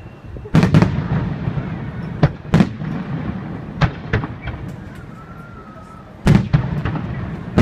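Aerial fireworks shells bursting overhead: a string of about seven or eight sharp booms, each with a rolling rumble after it. The loudest bangs come just over half a second in and again about six seconds in.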